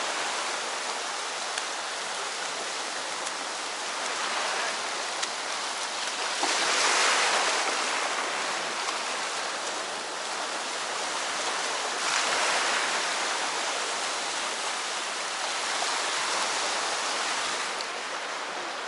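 Sea waves washing onto the shore: a continuous rush that swells louder every few seconds as each wave comes in.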